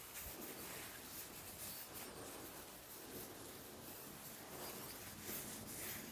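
Faint, irregular rubbing of an old oily cloth rag wiping down a steel axe head.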